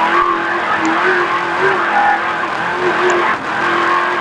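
Racer Engineering race truck's engine running hard at a steady high pitch, heard from inside the cab over a constant rush of road and wind noise. It eases off briefly about three seconds in, then picks up again.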